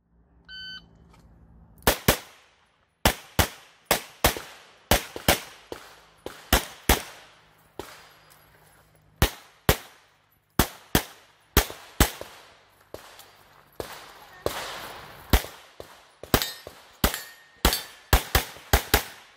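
An electronic shot timer gives one short beep. About a second later a CZ Shadow 2 pistol fires rapid strings of shots, mostly in quick pairs, with brief pauses between strings as the shooter moves through a course of fire.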